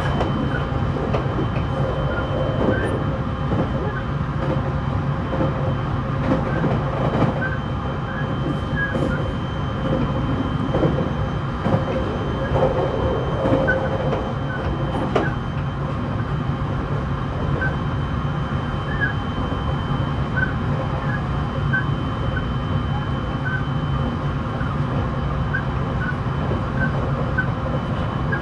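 E721-1000 series electric multiple unit running at a steady speed, heard from inside the powered cab car: an even rumble with a constant faint tone on top, scattered small squeaks and a few light clicks.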